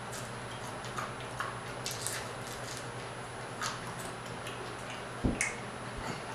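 Faint crackling and wet mouth sounds of someone nibbling crispy fried croaker off its small bones by hand, as scattered small clicks over a low steady hum. A soft thump comes about five seconds in.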